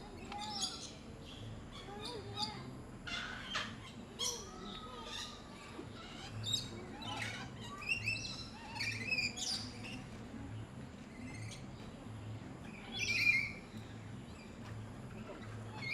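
Parrots calling in an aviary: many short, sharp squawks and chirps, one after another, over a low pulsing hum.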